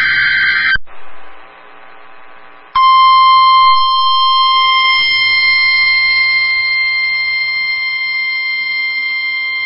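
The end of a screechy digital SAME header burst from NOAA Weather Radio, then, about three seconds in, the steady 1050 Hz weather-radio warning alarm tone. The tone holds at one pitch to the end and announces a flood warning about to be read.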